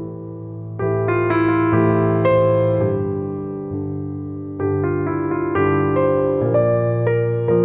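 Background keyboard music: slow, sustained piano chords, with louder new chords struck about a second in and again about four and a half seconds in.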